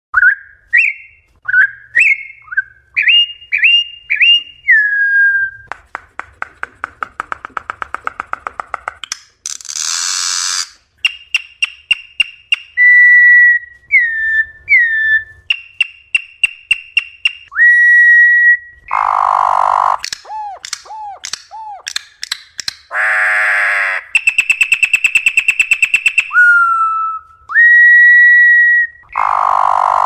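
Corrupião (campo troupial) singing its wild-type song: loud, clear whistled phrases, some notes sliding downward, alternating with a fast dry rattle and harsh, buzzy scolding notes.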